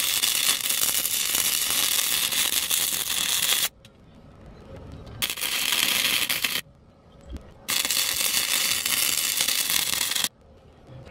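Electric arc welding a steel chain hook onto a tractor's loader bucket: a loud, even crackling hiss in three runs, the first stopping about three and a half seconds in, a short one about five seconds in, and a longer one stopping about a second before the end.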